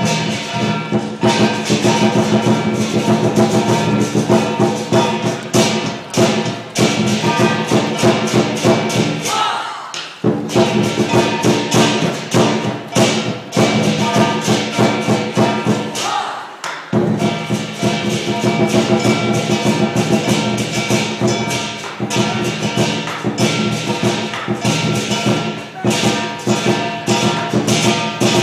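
Lion dance percussion: a Chinese drum beating fast and steadily under clashing cymbals and ringing gong. The beat breaks off briefly twice, about ten and seventeen seconds in.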